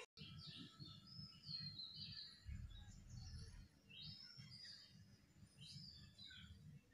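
Faint birdsong outdoors: many short chirps and warbling phrases, over a low rumble of wind or handling noise.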